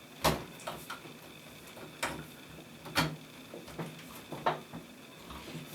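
Irregular knocks and clicks of a graphics card being handled and fitted into a PC case's vertical mount, about eight in all, the loudest just after the start and at about three seconds.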